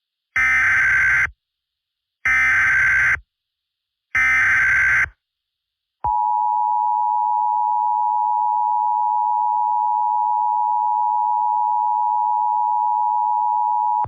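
Emergency Alert System SAME header: three short bursts of screeching digital data about two seconds apart, then a loud steady attention tone held for about eight seconds that cuts off sharply. This is the coded opening that announces an emergency alert before the spoken message.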